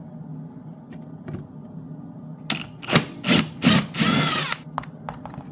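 A 1/4-inch socket driver backing a screw out of a dishwasher's lower kick panel. Light ticks, then a run of loud clatters about two and a half seconds in, and a short whir near the four-second mark.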